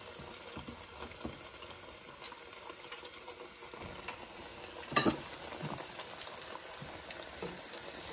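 Hot oil in an electric deep fryer sizzling and bubbling steadily around cornmeal-coated aubergine slices, with small clicks and a sharp knock about five seconds in.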